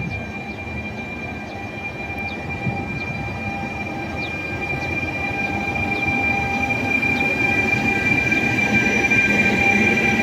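Intercity train hauled by an E.464 electric locomotive rolling past, its coaches' wheels squealing on the rails in a steady high-pitched whine over the rumble of the running gear, growing louder as the coaches go by.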